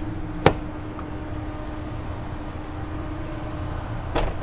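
Mercedes Sprinter rear cargo door latch clicking open about half a second in, then a second sharp latch click near the end as the other rear door is released, over a steady low hum.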